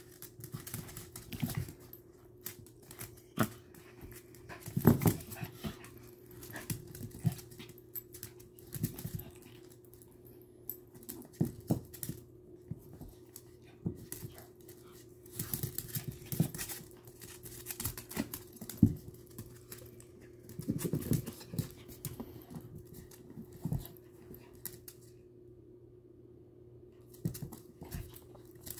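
Two small dogs play-fighting: scuffling and short bursts of dog vocalising, with claws clicking on the hard floor.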